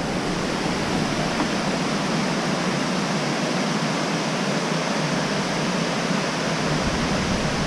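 Steady rushing of a waterfall, an even roar of falling water.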